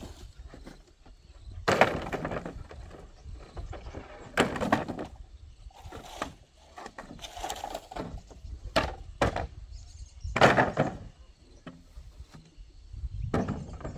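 Long dry bamboo poles knocking and clattering against each other as they are pulled off and dropped onto a pile of bamboo. There are several sharp knocks a few seconds apart.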